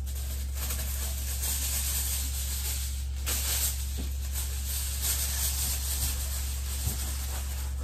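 Aluminium foil crinkling and rustling as it is handled and torn, a dry, hissy crackle, over a steady low hum.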